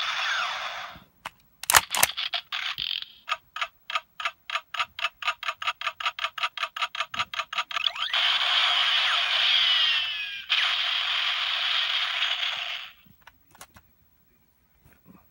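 Electronic sound effects from the speaker of a DX Kamen Rider Ghost toy gun. A short sound is followed by sharp clicks, then a rapid pulsing standby loop of about five beats a second, then two long blasts of firing-effect sound, ending in a few small plastic clicks.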